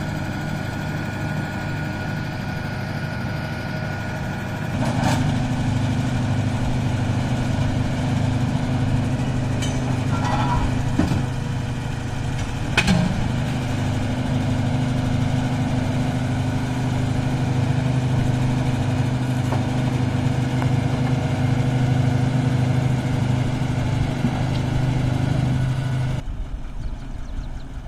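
Truck-mounted borewell drilling rig's engine running steadily. About five seconds in it gets louder and holds there, with a couple of sharp knocks, then drops off near the end.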